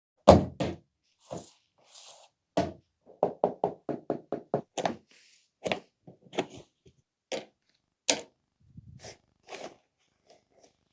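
Cardboard soundbar packaging being handled and opened: a string of knocks and thuds, with a quick run of about eight taps near the middle.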